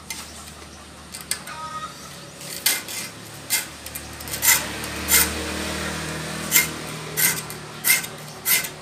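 A steel file rasping across a handsaw's teeth, sharpening the dull saw. About eight short strokes start some two and a half seconds in, roughly one every three quarters of a second.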